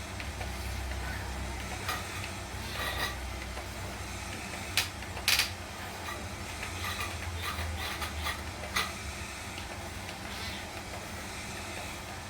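Scattered sharp clicks and knocks, a few seconds apart and two close together about five seconds in, over a low steady hum.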